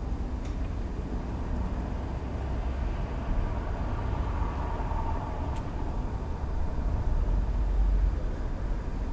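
Distant road traffic with a steady low rumble, and a faint hum that swells and fades about four to five seconds in.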